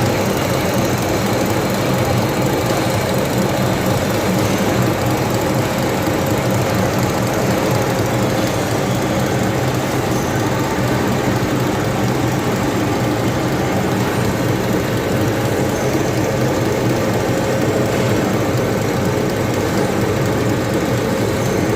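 Homogenizer machine running steadily: a constant, loud mechanical drone with a low hum that does not change.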